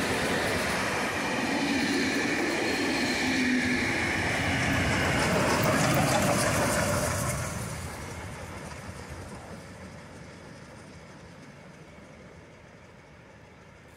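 Steam train, Victorian Railways K-class locomotive K183 and its passenger carriages, rolling past close by. A little past halfway the sound falls away to a much quieter, more distant train.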